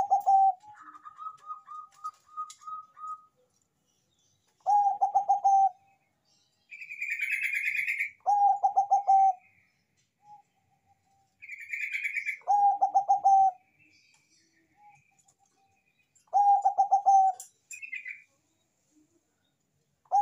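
Zebra dove (Bangkok perkutut) cooing: a phrase of quick, rattling coos about a second long, repeated roughly every four seconds, five times. Between the phrases come a run of higher, evenly spaced notes near the start, two harsher, higher calls around the middle, and faint high chirps from other birds.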